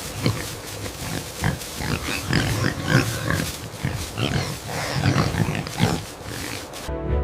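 Piglets squealing and grunting in a dense run of short, irregular calls.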